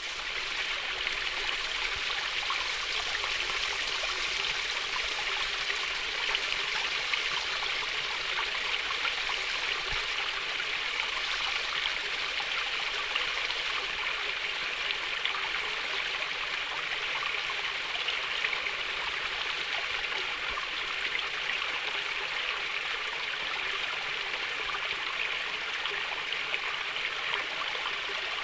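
Gently flowing water trickling and babbling steadily over stones, like a small stream.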